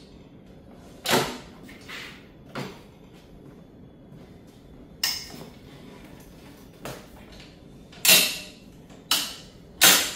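DEWALT rolling table saw stand being folded up and tipped onto its wheels: a string of about eight sharp metal clanks and clicks from its steel legs and frame, with the loudest near the end.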